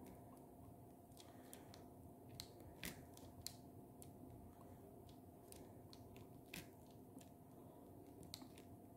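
Faint, irregular small clicks of a diamond-painting pen picking drills out of a tray and pressing them onto the canvas, over a faint steady hum.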